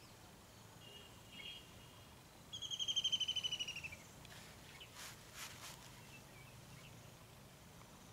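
A bird calls a fast trill of about fifteen quick notes, falling slightly in pitch over about a second and a half, a few seconds in. Fainter chirps come before it and a few short clicks after it.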